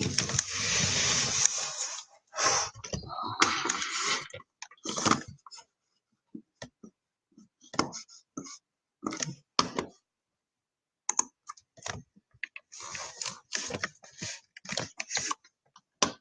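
A brief rustling scrape, then typing on a computer keyboard: irregular runs of short keystrokes and clicks with gaps between them.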